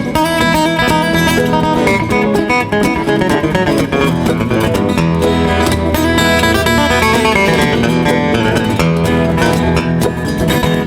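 Acoustic guitar instrumental break in a bluegrass-style country song: a lead acoustic guitar picks a run of quick melody notes over strummed rhythm guitars, with a cajon keeping the beat.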